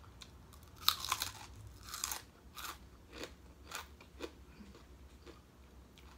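A person chewing crunchy food with the mouth close to the microphone: a run of crisp crunches about every half second, loudest about a second in and thinning out towards the end.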